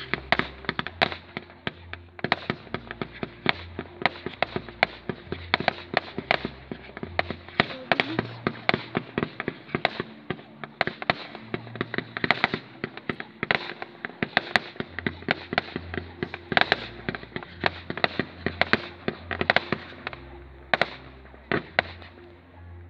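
Fireworks display: aerial shells bursting in a rapid, continuous barrage of bangs and crackles, several a second, with music underneath.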